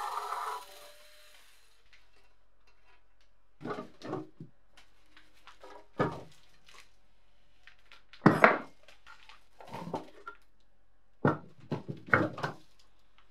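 A rotary power tool stops and winds down within the first second. Then the rusty metal arm and frame of a guillotine paper cutter are handled and set down on a workbench, giving scattered clanks and knocks, the loudest about eight seconds in.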